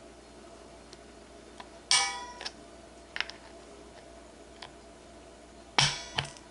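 Spool pin pliers squeezing the pin out of a Daiwa Alphas SV reel spool: a few sharp metallic clicks, each with a short ring, the loudest about two seconds in and again near the end, with lighter ticks between.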